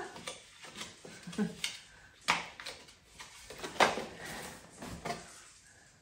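Handling noise as a small plastic coffee-dosing tool, the Razor, is taken off its card packaging: a run of sharp clicks and taps of plastic and card, loudest at about two and four seconds in.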